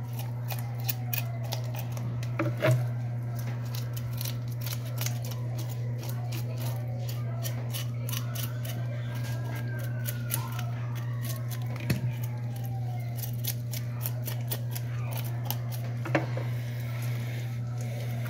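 A knife scraping scales off a mojarra on a plastic cutting board: a rapid run of short, scratchy ticks with a few louder knocks, thinning out in the last few seconds.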